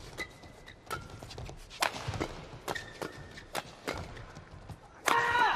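Badminton rally: rackets striking the shuttlecock in a run of sharp cracks, with short squeaks of players' shoes on the court. A loud shout near the end.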